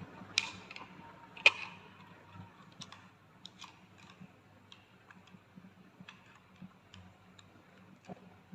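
Sharp plastic clicks and light taps from handling a Jumper AngelSounds JPD-100S9 handheld fetal Doppler while its battery is fitted: two loud clicks within the first second and a half, then faint scattered ticks.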